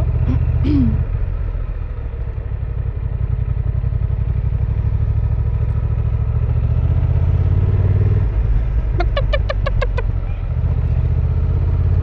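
Honda Transalp 750 motorcycle's parallel-twin engine running at low speed. It eases off a couple of seconds in, then picks up again. About nine seconds in, a quick run of about eight short, pitched sounds rises over the engine.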